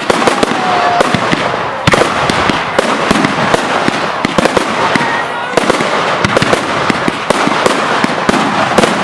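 Professional firework display in a dense barrage: many rapid crackles and bangs overlapping without a break.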